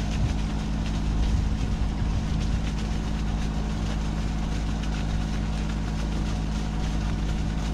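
Boat engine idling steadily, an even low drone with a fixed pitch.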